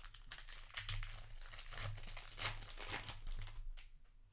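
Foil wrapper of a Magic: The Gathering play booster pack being torn open and crinkled by hand: a quick run of crackling rustles that dies down after about three and a half seconds.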